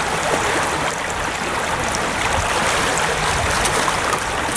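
Trout river's current rushing steadily.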